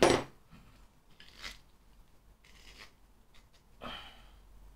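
Hand-tightening metal beer tap and coupler fittings: a sharp knock at the start as a small metal tool is handled, then three short metallic scrapes as the parts are twisted together.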